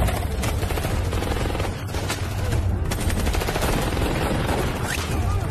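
Sustained rapid gunfire from several guns, shots overlapping densely without a break, as in a film shootout sound mix.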